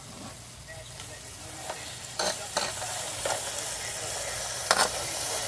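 Bok choy frying and sizzling in a pan, stirred with a fork that clinks against the pan about five times, the loudest knock near the end. The sizzle grows louder about two seconds in.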